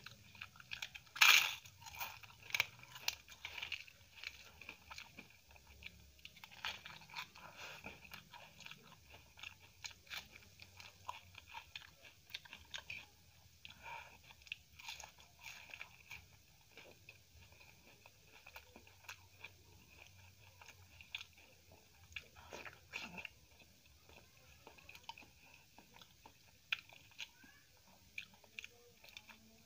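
A person chewing and crunching food close to the microphone: many short crisp clicks, the loudest about a second in.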